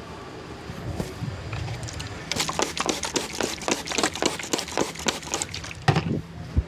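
Rapid hand slaps of a percussive massage, about six sharp slaps a second for some three seconds, followed by a heavier thump near the end.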